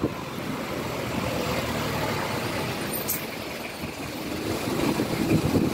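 Steady noise of road traffic, vehicles running.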